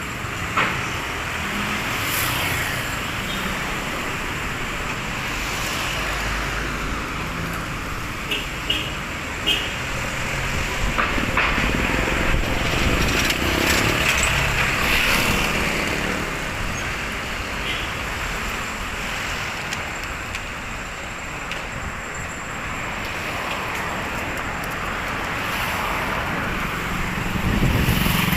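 Busy city street traffic going by: a steady wash of engine and tyre noise that swells and eases as vehicles pass, with a few short sharp sounds about a third of the way in.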